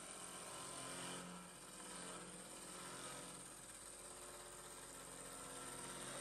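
Faint, steady mechanical hum of a 5-axis CNC machining center running, with several steady tones that swell slightly a few times.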